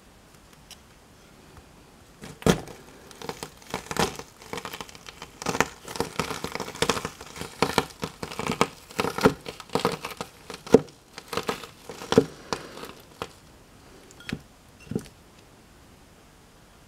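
Pomegranate seeds crushed under a flat stone, bursting in a run of irregular crackles and pops. It starts with one sharp pop about two seconds in, goes on densely for about ten seconds, and ends with a couple of separate pops.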